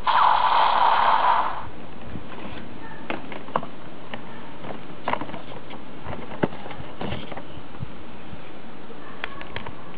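The electronic sound effect of a Kamen Rider W JOKER Gaia Memory toy, played through its small speaker, ends about a second and a half in. What follows is a steady hiss with scattered light clicks as the plastic toy is handled between effects.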